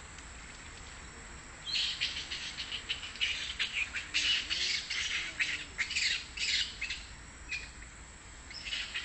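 Animal calls: a rapid, harsh, high-pitched chattering that starts suddenly about two seconds in, runs for about five seconds, pauses, and starts again near the end.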